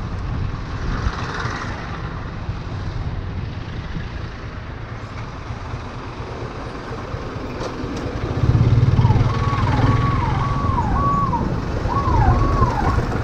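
Motorcycle engine running with road and wind noise as the bike moves slowly through traffic; the engine grows louder about two-thirds of the way in. Over it, for the last few seconds, an electronic warning tone repeats, sweeping down in pitch about twice a second.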